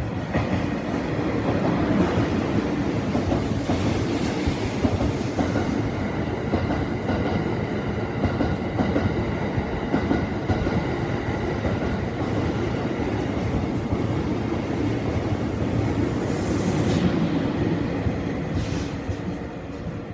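E001 series (Train Suite Shiki-shima) train passing, its wheels clacking over the rail joints with a steady run of noise that swells and then fades. A brief high hiss sounds near the end.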